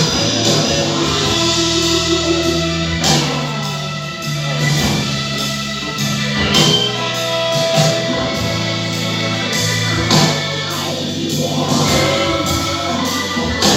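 Music with guitar and what may be singing, played with a steady beat.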